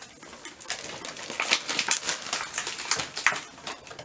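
Packaging and wrapping crinkling and rustling in irregular, crackly bursts as toys are unwrapped.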